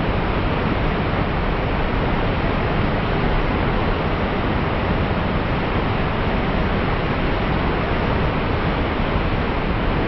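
Large waterfall pouring over a broad ledge into churning white water: a loud, steady rush of falling water that holds even throughout.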